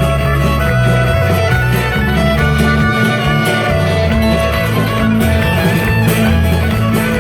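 Live country band playing an instrumental passage, fiddle and guitar over a steady, moving bass line.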